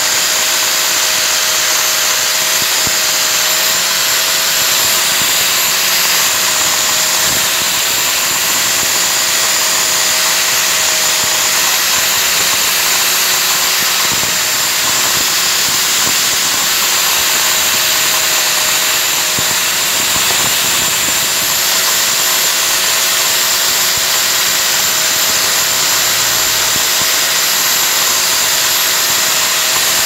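Handheld electric angle grinder with a white disc running steadily with a constant motor whine, grinding and smoothing a small metal part held against the disc.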